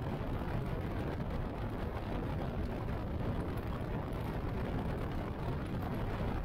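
Motorcycle riding at steady cruising speed: engine running with wind rushing past, a constant, unchanging noise.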